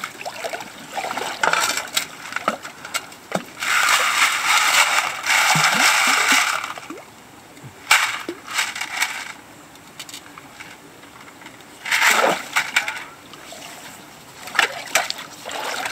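A shovel digging gravel in a shallow riverbed, with water splashing and sloshing in bursts as the blade goes in and comes back out. A single sharp knock about eight seconds in.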